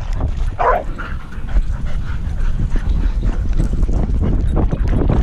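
A dog gives a short bark or yelp about half a second in, over steady low rumbling and rubbing noise from a camera strapped to a moving dog's back.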